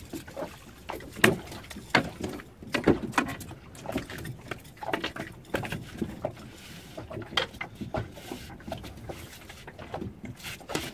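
Choppy lagoon water slapping against the hull of a small open boat, with irregular knocks and splashes, the sharpest about a second in.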